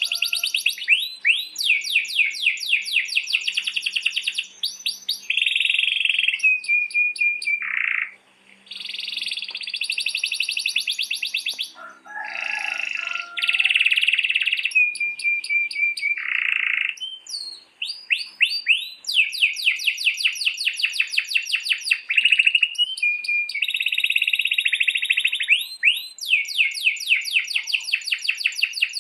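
Domestic canary singing long rolls: fast trills of rapidly repeated notes, each run held for a second or more, alternating with short steady whistled tones and buzzy phrases, almost without pause.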